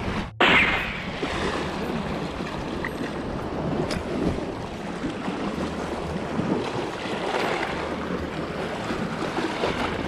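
Sea waves washing against a rocky shoreline, with wind buffeting the microphone in a steady rush. Just after the start the sound cuts out briefly and comes back in a sudden, louder burst.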